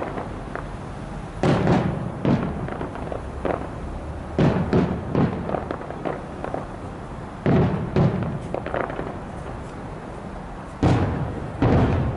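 Aerial fireworks shells bursting in loud booms, in clusters about two, four and a half, seven and a half and eleven seconds in, each boom trailing off, with smaller pops between.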